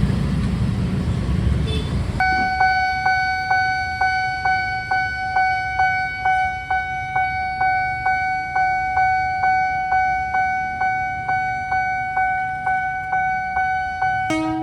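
Railway level-crossing warning alarm at the crossing barrier. It starts about two seconds in as a steady electronic tone that pulses evenly about twice a second, signalling that a train is approaching and the barrier is closing. Before it starts, road traffic noise.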